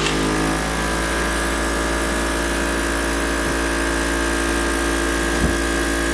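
Cough assist machine's blower running with a steady hum and whine. Its tone shifts about half a second in, and there is a small knock near the end.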